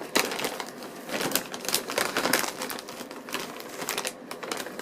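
Chewing crunchy ruffled potato chips: a run of irregular crisp crunches.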